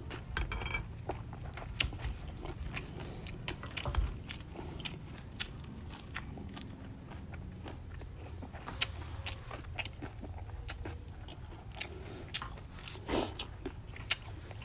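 A person chewing a mouthful of fried rice noodles and fresh greens close to the microphone: a run of small mouth clicks throughout, with a few louder ones about four seconds in and near the end.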